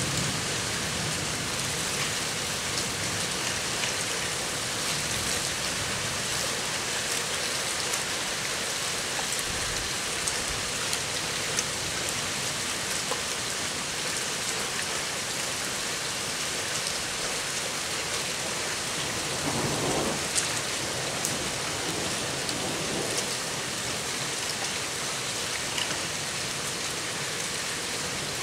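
Steady rain from a squall-line thunderstorm, with scattered sharp drop ticks. About twenty seconds in, a low rumble of thunder swells and fades over a few seconds.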